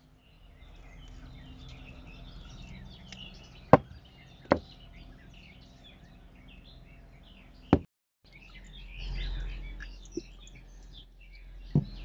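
Small songbirds chirping and singing, with several sharp knocks spaced a second or more apart standing out as the loudest sounds. The sound cuts out briefly about two-thirds of the way through.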